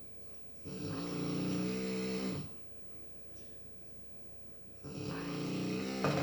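Snoring: two long snores about four seconds apart, each lasting nearly two seconds, with a low pitched drone.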